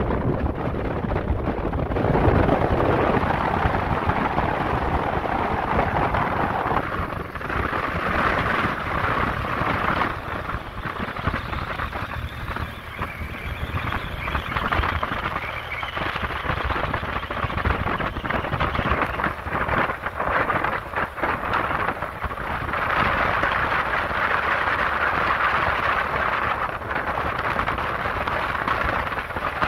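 Wind rushing and buffeting over the microphone of a rider moving along the road, with low, irregular rumbling gusts.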